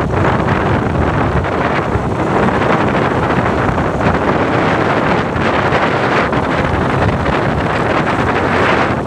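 Loud, steady wind rushing over the microphone of a camera on a moving vehicle, mixed with road and vehicle noise.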